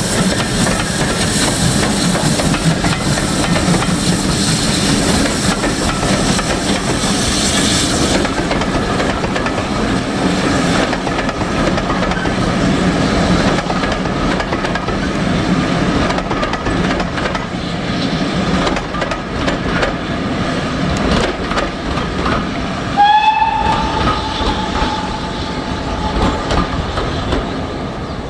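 Steam-hauled passenger train running past, a steady rumble and clatter of coaches on the rails. About two-thirds of the way through, the locomotive's whistle sounds one long note lasting a few seconds.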